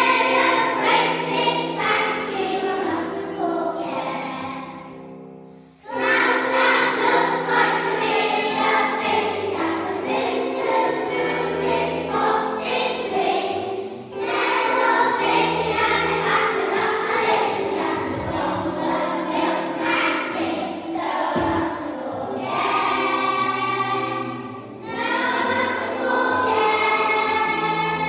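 Choral music: a choir singing in long phrases, with brief pauses about six, fourteen and twenty-five seconds in.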